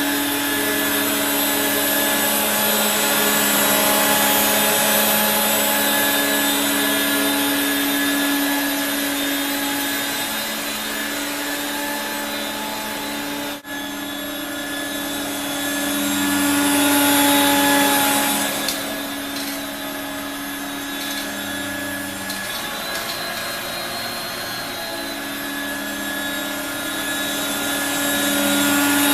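1985 Regina Electrikbroom PowerTeam stick vacuum running: a steady motor hum and whine over a rush of air, with its pitch and loudness shifting as it is worked. There is a brief break about fourteen seconds in.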